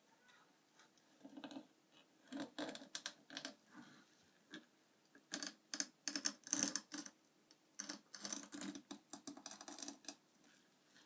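Kitchen knife cutting through a catfish on a cutting board: irregular bursts of short rasping, clicking strokes as the blade saws back and forth.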